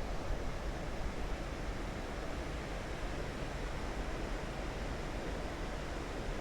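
Steady rushing noise of river water flowing at a spillway, mixed with wind on a microphone that has lost its wind cover.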